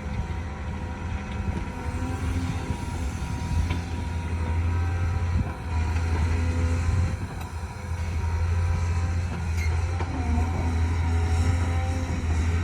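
A heavy construction machine's diesel engine running steadily with a deep drone, easing off briefly about five and a half and seven and a half seconds in.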